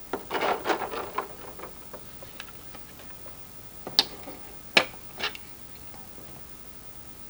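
Hard plastic parts handled and clicking: a quick run of small clicks and rustling in the first second and a half, then three sharp single clicks between about four and five and a half seconds in.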